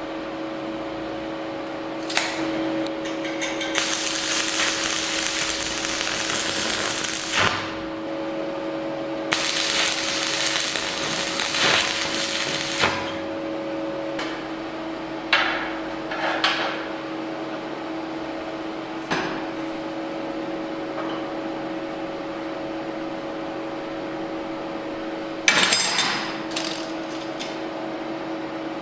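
Workshop tool sounds over a steady machine hum: two hissing bursts of about three seconds each, then several sharp knocks and clicks of tools being handled, the loudest clatter near the end.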